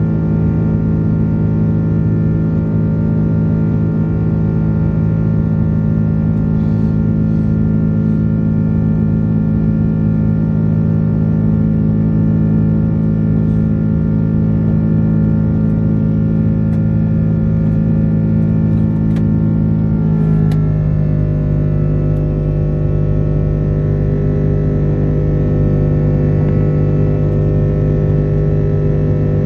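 Steady drone of an Airbus A330-300's Rolls-Royce Trent 700 turbofans heard inside the cabin during the climb after takeoff. The engine tones step down to a lower pitch about twenty seconds in as thrust is reduced, then hold steady.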